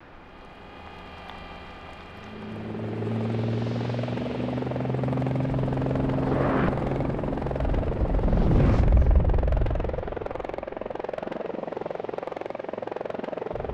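Sound-effect helicopter rotors for the animated Mars Helicopter. A low, steady hum rises slightly over the first several seconds. Two loud swooshing fly-bys come about six and a half and nine seconds in, followed by a steady fast rotor chop.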